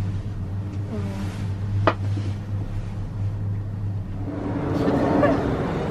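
Steady low hum of a moving cable-car cabin, with one sharp click about two seconds in. About four seconds in the hum gives way to a fuller, noisier ambience.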